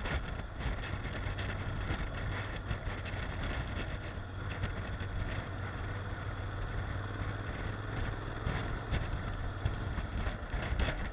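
Honda NC750X's parallel-twin engine running at a steady cruising pace, mixed with wind rushing over the microphone.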